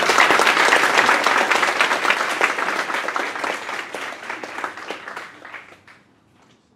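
Audience applauding: dense clapping that thins out and fades away near the end.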